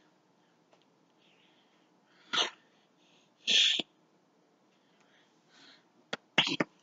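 Two short, breathy puffs of air a little over a second apart, then a quick run of sharp clicks and taps near the end.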